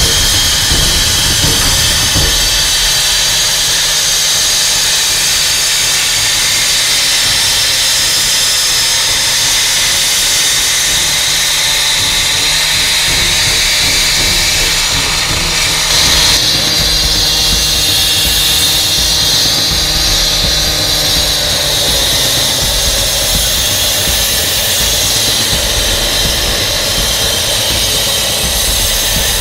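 Fast Cut SLR cut-off saw running at full throttle, its engine under load as the diamond blade grinds through concrete, with a loud, steady high-pitched hiss of blade on stone. The tone changes abruptly about halfway through as a new cut begins.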